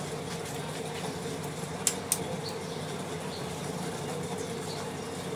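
Steady low mechanical hum, with two sharp clicks close together about two seconds in.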